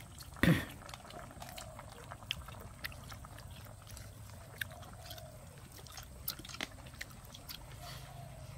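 People eating with chopsticks from porcelain bowls: scattered light clicks of chopsticks on bowls and quiet chewing, with one short louder sound about half a second in. Rice noodles are slurped near the end.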